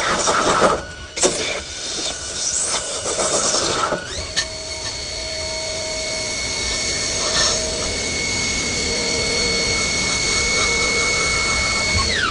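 CNC lathe at work: a few seconds of rough machining noise with scattered clicks. Then the spindle drive's whine rises to a steady high tone that holds, and it falls away near the end as the spindle slows down.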